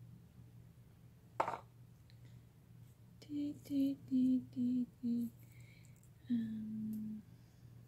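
A woman softly singing a short phrase under her breath: five quick notes stepping down in pitch, then one longer held note. A single sharp click comes about a second and a half in.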